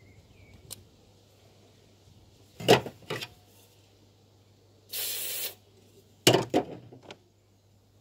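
Aerosol can of penetrating spray with a straw nozzle giving one short hiss of about half a second, near the middle, into an injector wiring connector to drive out the oil behind a misfire. Sharp knocks and clatter from handling come before and after the spray, and are the loudest sounds.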